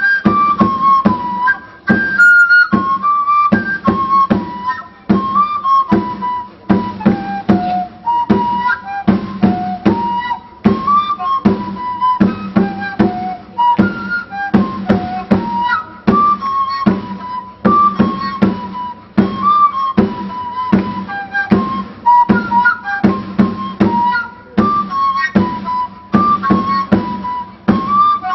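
A pinquillo, an Andean cane duct flute from Chupa, Azángaro, plays a reedy, piping melody in short phrases that step down and climb back. It is backed by a large double-headed drum beaten with a stick in a steady beat of about two strokes a second.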